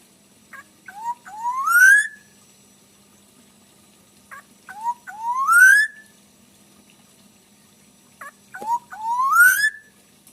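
Black-naped oriole (kepodang) calling three times, about four seconds apart. Each call is a few short clipped notes followed by a long whistle that rises steadily in pitch.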